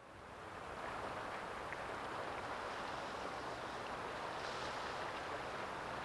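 Ocean waves washing on the shore, a steady rushing wash that fades in over the first second, with a slight swell partway through.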